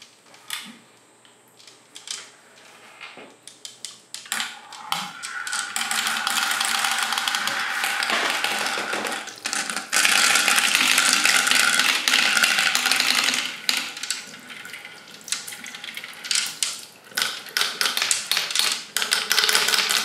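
A stream of small plastic balls rolling and clacking along a plastic marble-run track in rapid runs of clicks, mixed with water pouring and splashing through the course. The rushing water and rattling build up after a few seconds and are loudest around the middle.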